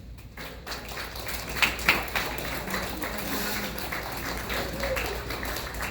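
Audience clapping: a dense patter of many hands that runs steadily through the pause.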